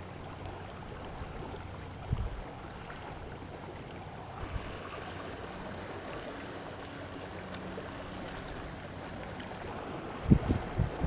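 Steady wash of wind and water lapping around a small kayak on open water. A low thump comes about two seconds in, and several louder low thumps come near the end.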